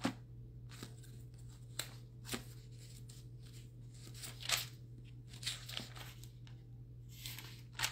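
Paper pages being leafed through and handled: a string of soft rustles and taps, roughly one every second.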